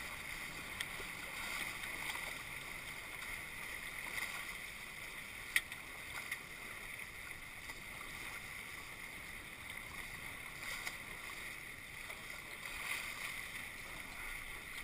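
Steady rush of water along a Tornado catamaran's hulls as it sails through chop, with a few light knocks and one sharp click about five and a half seconds in.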